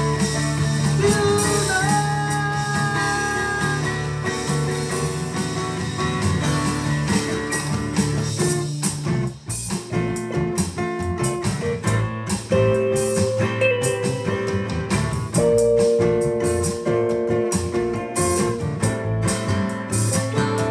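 Live jam of a guitar in DADGAD open tuning with drums played on an electronic drum kit: held, ringing guitar notes over a steady beat. The music thins out briefly about nine seconds in, then picks up again.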